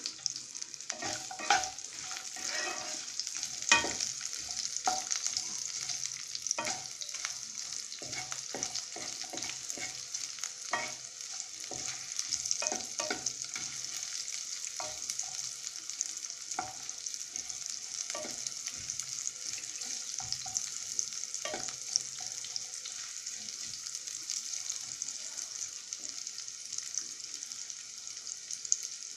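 Diced potatoes sizzling steadily as they shallow-fry in hot mustard oil in a nonstick kadai, stirred with a wooden spatula that scrapes and taps the pan. The spatula strokes are frequent at first and thin out over the last third, leaving the sizzle alone.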